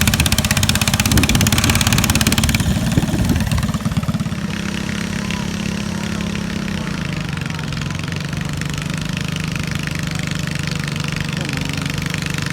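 Lawn tractor engine running hard at high throttle, then about four seconds in dropping back to a quieter, steady idle that settles a little lower a few seconds later.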